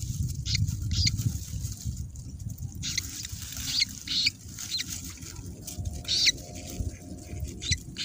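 Thin, high peeps at irregular intervals from a newly hatched rail chick (perlung) in its nest, over low rustling and handling noise from the dry-grass nest.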